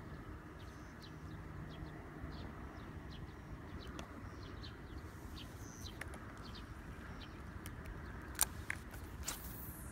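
Small birds chirping in short calls, with a steady low rumble underneath and a few sharp clicks.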